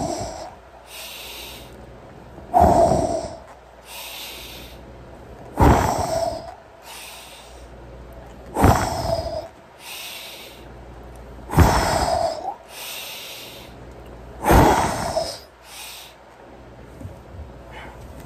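A man breathing hard through a set of push-ups: a loud breath with every rep, about every three seconds, each followed by a softer breath. The reps stop about 15 seconds in.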